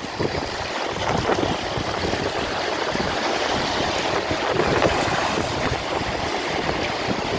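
Small sea waves washing and foaming over shoreline rocks, with wind buffeting the microphone.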